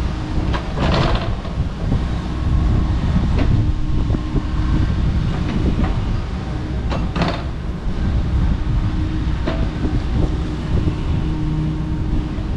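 Kobelco SK85 MSR excavator's diesel engine running steadily under load, with a few sharp cracks and knocks, the clearest about a second in and about seven seconds in.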